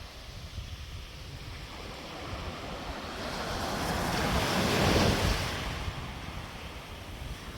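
Wind rumbling on the microphone by the water, with a rushing noise that swells, peaks about five seconds in, then fades away.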